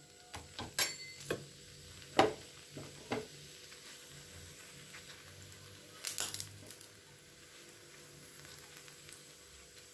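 A paratha frying on a hot tawa, sizzling faintly as oil is brushed over it with a basting brush, with a few light taps and dabs of the brush. The sharpest tap comes about two seconds in.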